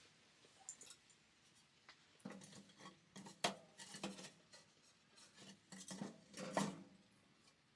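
Faint, irregular clinks and knocks of tableware or cookware being handled, with a handful of louder clatters spread through.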